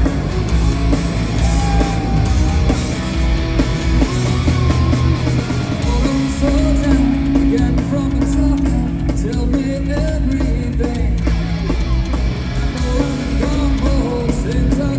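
Live rock band playing over a concert PA: electric guitars, bass and drums with singing, loud and steady, heard from among the audience in a large hall.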